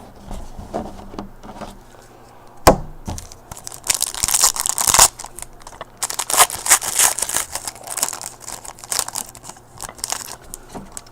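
A sharp knock, then a trading-card pack's wrapper being torn open and crinkled for several seconds.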